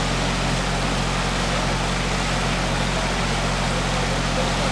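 Swollen, fast-flowing river in flood, rushing with a steady, even noise. A low engine hum runs underneath without change.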